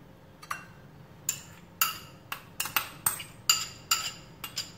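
Metal spoon clinking against a small glass bowl, about a dozen quick, irregular ringing taps as garlic-ginger paste is scraped and knocked out of it.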